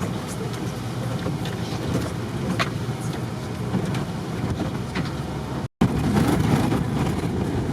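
Bus running on a rough mountain road, heard from inside the cabin: a steady low rumble of engine and road noise with faint rattles. The sound cuts out for an instant about six seconds in, then carries on.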